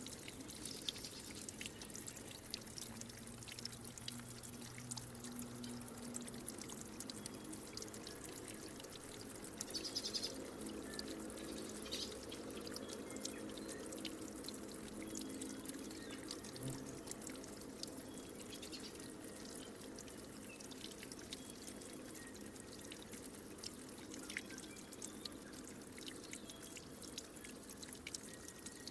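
Water trickling and dripping steadily, with many small splashes and drips, and a brief louder high sound about ten seconds in.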